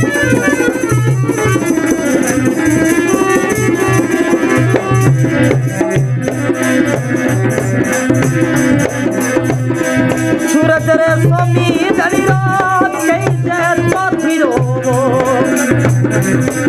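Instrumental interlude of Rajasthani folk music: a dholak drum and the jingles of a khanjari keep a steady rhythm, with a wavering melody line over them.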